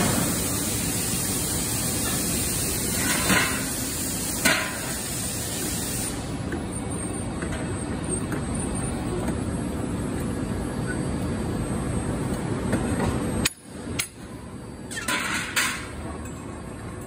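Hot spring-coiling machine running as it winds red-hot steel bar onto a rotating mandrel: a steady dense mechanical rumble with a couple of metallic knocks. The noise drops out briefly about three-quarters of the way through, then comes back with short noisy bursts.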